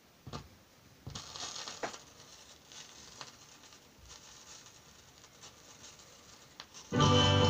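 Acetate record playing on a turntable: the stylus runs in the lead-in groove with surface hiss, crackle and a few pops, then music starts suddenly near the end.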